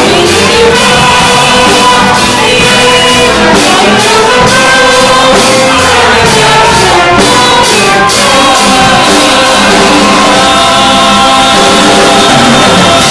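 Several voices singing a song into microphones over instrumental accompaniment, loud and continuous.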